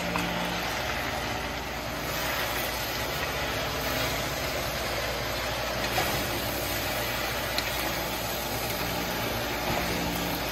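Kale and vegetables frying in a hot wok, a steady sizzling hiss, as they are tossed with wooden spatulas.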